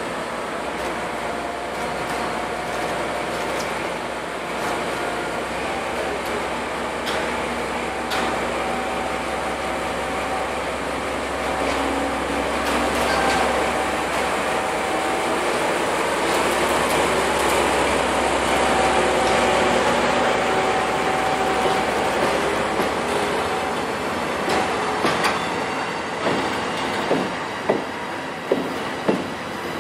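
A DE10 diesel-hydraulic locomotive's engine running under load as it pulls an unpowered EF65 electric locomotive past, loudest in the middle. Near the end comes a series of sharp clicks from wheels crossing rail joints.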